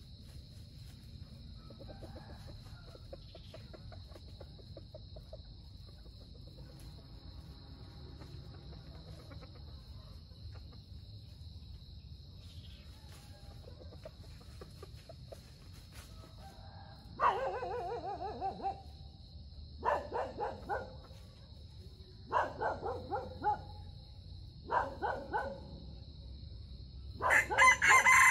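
Red junglefowl rooster crowing: five short crows about two to three seconds apart, starting a little past halfway and growing louder, the last the loudest. Under it runs a steady high drone of crickets.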